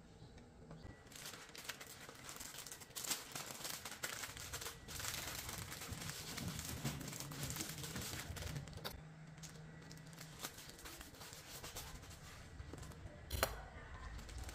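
Printed paper food wrap crinkling and rustling as it is rolled and folded tightly around a tortilla wrap, with one sharp snap near the end.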